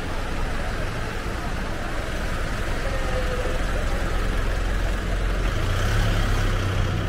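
City street ambience: a steady rumble of road traffic, with a vehicle engine's low hum swelling over the last second or so.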